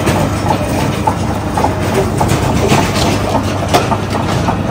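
Electric screw-type juice extractor running as it crushes fruit: a steady motor drone with scattered crackles and knocks from the pulp being pressed through.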